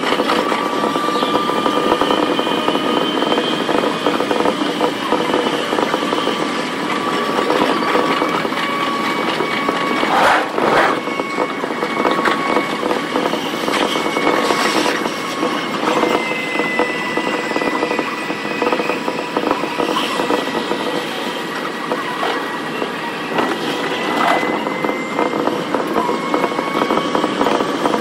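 Keihin-Tohoku Line commuter train (E233 series) running, heard from inside the car: a steady rush of wheel and rail noise with faint steady motor whines, and a louder rush about a third of the way in.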